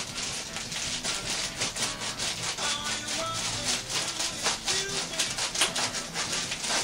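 Scissors cutting across a sheet of Reflectix foil-faced bubble insulation: a steady run of crisp snips, a few a second.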